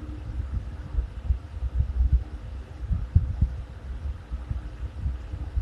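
Low rumbling background noise with irregular soft thuds and a faint steady hum underneath.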